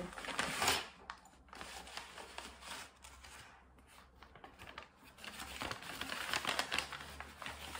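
Brown kraft-paper bag crinkling and rustling as it is handled and opened. The crackling is louder just after the start and again over the last couple of seconds, with a quieter stretch in between.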